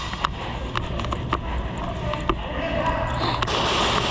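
A few scattered sharp cracks during an airsoft game, over a steady low rumble, with faint voices near the end.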